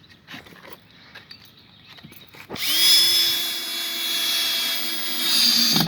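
Power drill driving a screw to fix a brace in place: quiet handling at first, then the drill spins up about two and a half seconds in, runs with a steady whine for about three seconds and stops abruptly.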